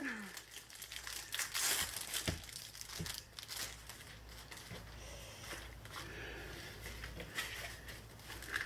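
Thin clear plastic bag crinkling and rustling as a rolled diamond painting canvas is handled and slid out of it, with a couple of light knocks about two and three seconds in.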